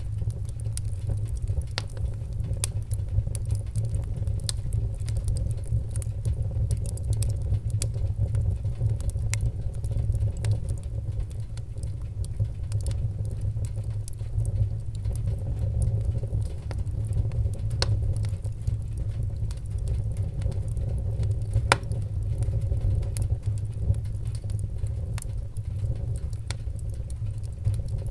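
Large fire burning: a steady low rumble of flames with irregular sharp crackles throughout.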